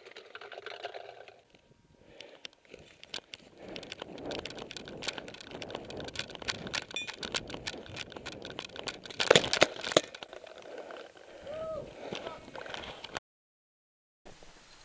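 A paintball player's footsteps running over grass, with the marker, hopper and gear rattling in quick, irregular clicks and knocks. A cluster of louder, sharper cracks comes about nine seconds in.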